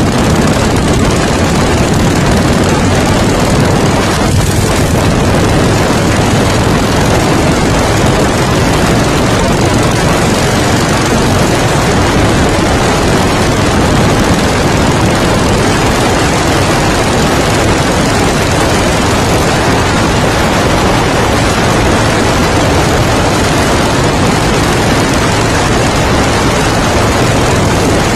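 Harley-Davidson motorcycle being ridden, its engine mixed with heavy wind rush on the phone's microphone: a loud, steady noise that does not let up.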